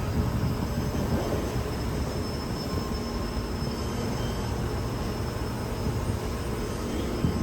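Steady industrial machine noise: a low rumble and fan-like hiss with a few faint high steady whines, unchanging throughout.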